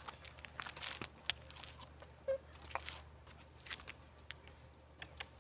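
Irregular crackling and rustling, like leaves or food being handled and crunched, with one short squeak a little over two seconds in.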